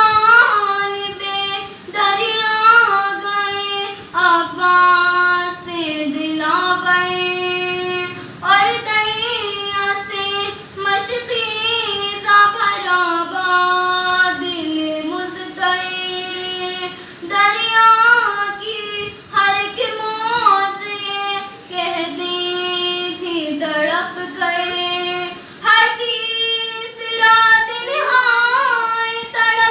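Young girl singing solo and unaccompanied into a microphone, in long held phrases broken by short pauses for breath.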